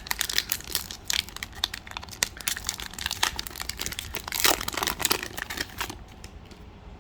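Plastic wrapper of a trading card pack crinkling and tearing as it is handled and ripped open, a dense run of crackles that dies down about six seconds in.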